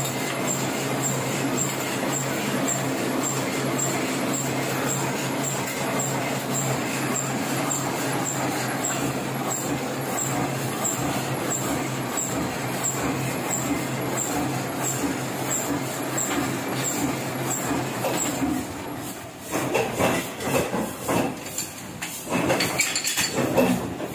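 Heidelberg offset printing press running steadily, its rollers turning with a hum and a light regular tick a little under a second apart. About three-quarters of the way through the machine noise stops, and irregular knocks and clatter follow as parts of the press are handled.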